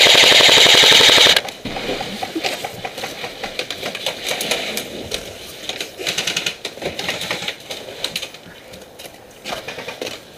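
Airsoft PKM machine gun firing one long full-auto burst that cuts off sharply about a second and a half in, followed by scattered quieter clicks and knocks.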